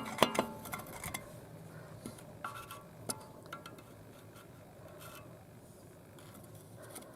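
A screwdriver tapping and scraping in the cooling vents of an Audi A4's ventilated front brake disc, clearing out rust and dirt: a few light metallic clinks, some ringing briefly.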